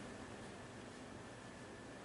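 Faint steady hiss of room tone and recording noise, with a faint high steady whine underneath.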